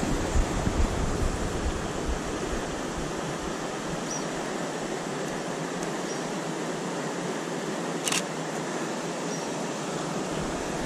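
Steady, even rushing of river water over rocks, with low wind rumble on the microphone in the first few seconds and a single sharp click about eight seconds in.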